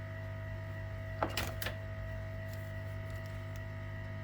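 Steady electrical hum with a couple of thin high tones over it, and a short burst of clicks and rattles a little over a second in.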